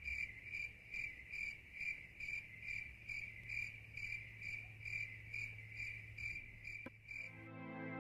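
Crickets chirping steadily at night, about two to three chirps a second. The chirping stops near the end as soft music comes in.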